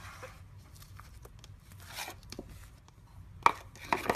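Thick white slime squished and poked by fingers in a plastic tub, giving scattered soft clicks and crackles, with a few louder pops near the end.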